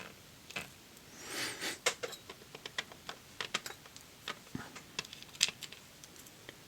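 Irregular small clicks and taps of tweezers and small lock parts being handled, with a short scrape about a second and a half in.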